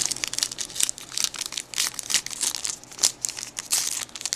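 Paper-foil wrapper of a baseball trading card pack crinkling as it is ripped open by hand, a dense run of quick, irregular crackles.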